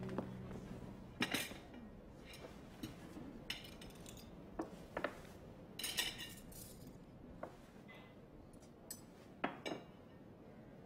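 A table being set: plates, a drinking glass and cutlery put down one after another, giving irregular clinks and clatters of crockery, glass and metal, some ringing briefly. The last notes of a song die away at the very start.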